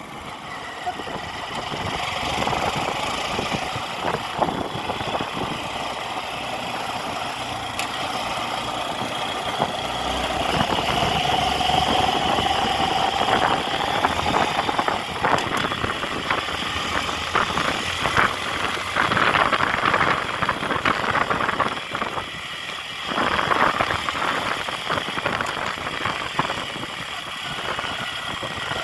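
Engine running, with a pitch that rises slowly about a third of the way in and gets louder in the second half.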